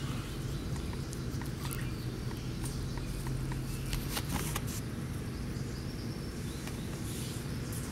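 Outdoor background of a steady low hum with a faint, even ticking at about four a second for a few seconds, and scattered light clicks and rustles from puppies moving on grass beside a wire pen.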